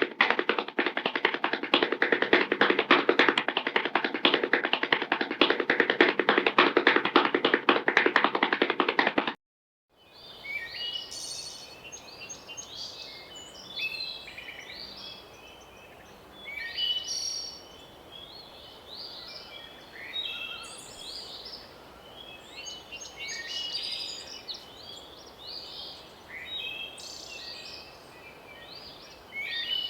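A loud, dense, rapid tapping clatter that cuts off abruptly about nine seconds in. After a brief silence, songbirds chirp in short repeated calls over a faint outdoor ambience.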